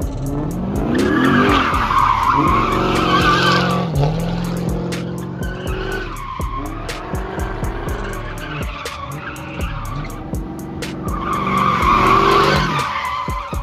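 Dodge Charger doing donuts: the engine revs up and down under wheelspin while the tyres squeal. The squeal is loudest about a second in and again near the end.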